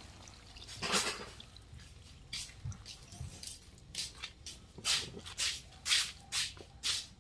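Liquid poured from a plastic cup into a wok of cooking fish, splashing about a second in, followed by a run of irregular short drips and splashy pops in the broth.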